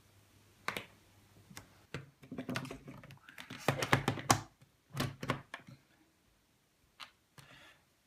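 Irregular run of short plastic clicks and knocks from hands handling a plastic wall-plate dimmer switch and its cable connectors on a table.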